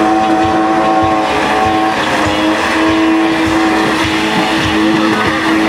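BMW E30 engine held at high revs through a burnout, its rear tyres spinning and squealing on the asphalt. The engine note holds steady, wavers in the middle, then steadies again near the end.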